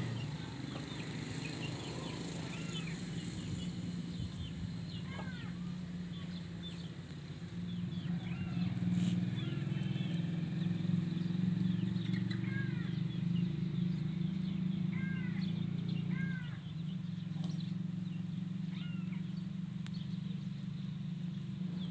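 Short, high bird chirps scattered throughout over a steady low drone, which grows a little louder from about 8 seconds in and eases back near 16 seconds.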